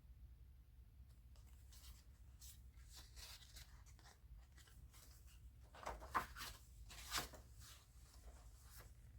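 Paper pages of a handmade junk journal rustling softly as they are handled and turned, with two louder crackles of paper about six and seven seconds in.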